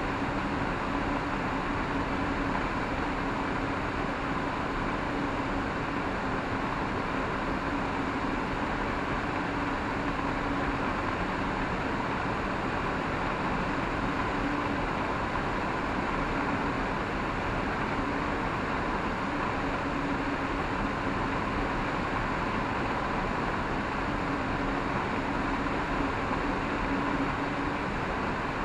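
Steady rush of air over an Ikarus C42 microlight's cockpit as it glides with the engine off and the propeller stopped, with no engine sound.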